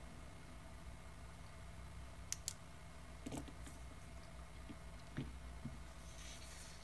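Faint handling of a plastic ruler and pen on paper over a tabletop: two sharp clicks a little over two seconds in, then a few soft knocks as the ruler is slid and set aside, over a low steady hum.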